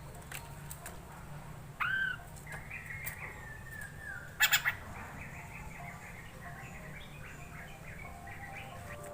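A poksay mandarin (hwamei laughingthrush) singing: a curved whistled note, runs of quick chirps, and a short harsh burst about halfway through, over a steady low hum.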